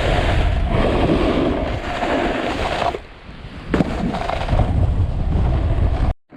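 Strong wind buffeting the microphone over the scrape of a snowboard sliding across spring snow. The noise drops away briefly around the middle, then resumes, and cuts off abruptly just before the end.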